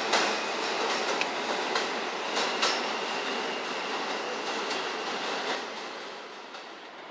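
New York City Subway Q train pulling away along an elevated track, its wheels clicking and knocking over the rail joints. The sound fades as the train draws off into the distance, dropping away about two-thirds of the way in.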